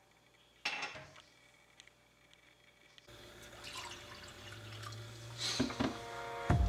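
A glass clacks against a cabinet shelf about half a second in, then water is poured from a plastic pitcher into a glass mug, the pouring hiss growing louder toward the end.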